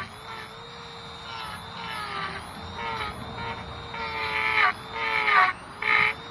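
A power tool's motor running with a wavering pitch. Near the end it surges loudly several times, the pitch sagging at the end of each surge as it bites into wood.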